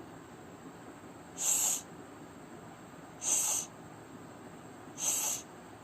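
A woman voicing the phonics sound of the letter S, a hissed "sss", three times about two seconds apart.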